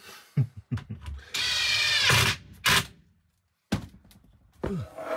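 Cordless drill driving a screw into a wooden frame: the motor runs steadily for about a second, rising a little in pitch at the end, then gives one short second burst. A few sharp knocks follow near the end.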